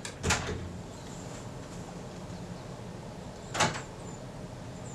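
Two brief scrapes of a small screwdriver working against a tight adjustment screw on a camera rangefinder, one just after the start and one about three and a half seconds in, over a steady low hum.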